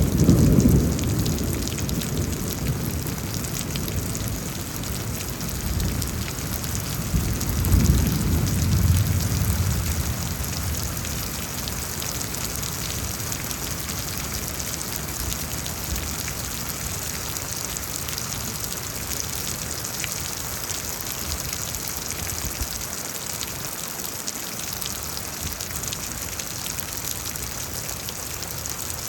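Steady rain hissing down through a thunderstorm. The tail of a thunder rumble dies away at the start, and a second low roll of thunder swells and fades about eight seconds in.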